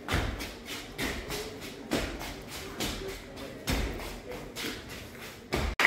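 Dancers' stamping and stepping footwork on the floor: a quick run of taps and shuffles with heavier thuds about once a second.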